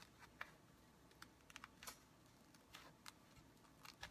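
Faint, irregular small clicks and crackles as layered case foam is torn and scraped apart by fingers.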